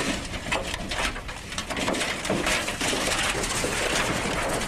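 Thin sheet-metal skin of a crashed light plane's fuselage being worked by hand, a dense run of crinkling and scraping noises.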